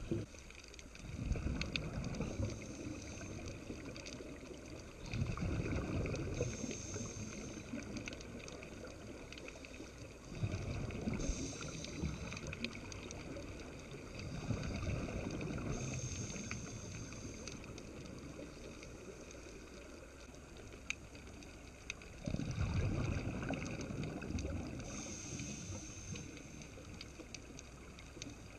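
Scuba regulator breathing heard through an underwater camera housing: several low rumbling bursts of exhaled bubbles, each lasting a second or two, with a short high hiss between them, over a steady faint underwater hiss.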